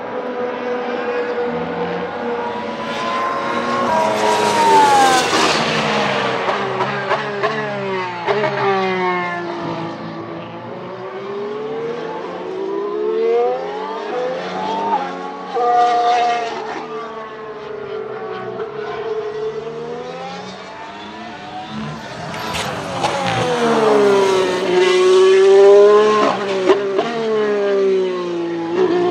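McLaren MCL34 Formula 1 car's Renault E-Tech 19 turbocharged V6 hybrid power unit at speed. The car passes several times, its pitch rising through quick upshifts under acceleration and falling on downshifts, in three loud surges with the last the loudest.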